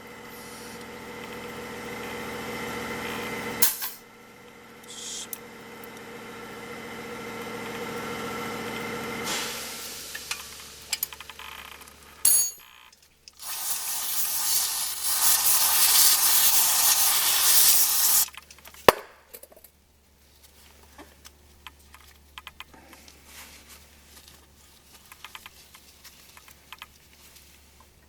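Brake-job workshop sounds: two stretches of a steady mechanical whirring that grows louder, then a few seconds of loud hissing, one sharp click, and faint scattered taps.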